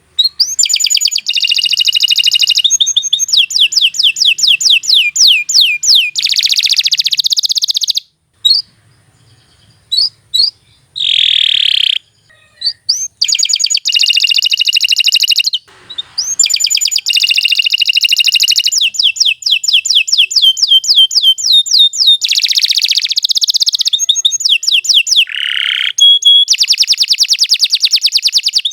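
Domestic canary singing: long, fast trills of rapidly repeated high notes, broken about eight seconds in by a few seconds of scattered short calls before the trilling resumes.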